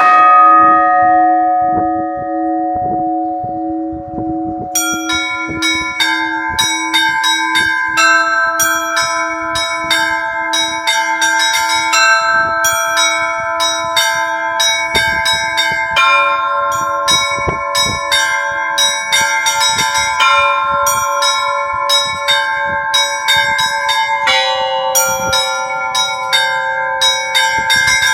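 Russian Orthodox church bells ringing a zvon. One bell is struck at the start and left ringing. From about five seconds in, small treble bells join in a rapid, repeating chime over steadier middle bells.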